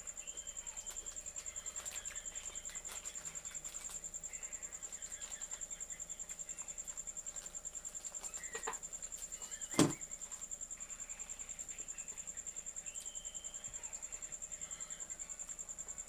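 Insects, most likely crickets, trilling steadily in the background as an even, high, pulsing note. A single sharp click or knock sounds about ten seconds in, with a fainter one a second before it.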